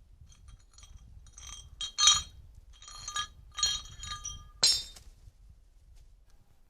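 A series of about five ringing clinks of a hard object, each leaving a short ring at the same pitches, the loudest about two seconds in.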